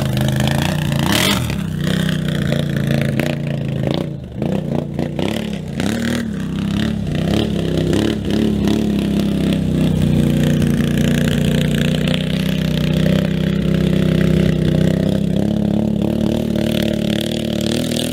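Can-Am Outlander XMR 1000R ATV's V-twin engine revving as the quad pulls away, its pitch rising and falling with the throttle for the first several seconds. It then holds a steady high run.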